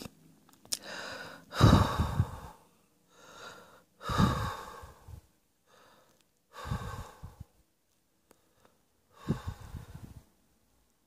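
A person coughing in four separate bouts, each a sudden loud cough after a quick breath in, spaced about two and a half seconds apart.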